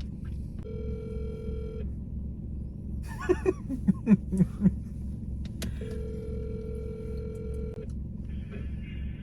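Telephone ringback tone heard over a phone's speaker: two steady rings about four seconds apart while the call waits to be answered. A few short voice sounds fall between the rings, over a low hum.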